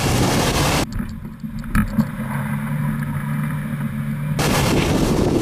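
Wind on the microphone, then a car engine running steadily, heard muffled from a hood-mounted camera, with two low thumps about two seconds in. Wind noise returns near the end.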